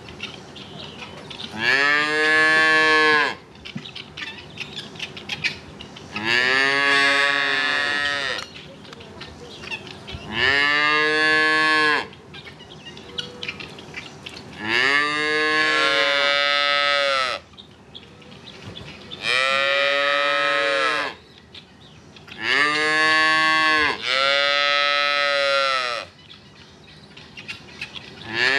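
Black-and-white calves mooing loudly, calling for their dinner: about seven long bellows, each a second or two with the pitch rising then falling, one every three to four seconds, two of them back to back near the end.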